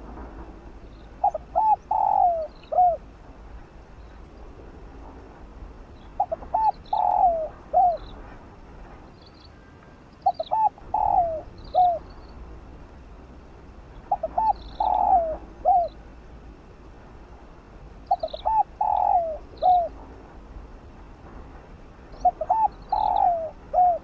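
Spotted dove cooing: a phrase of several short coos and a longer rolling one, repeated six times about every four seconds. Faint high chirps come in between.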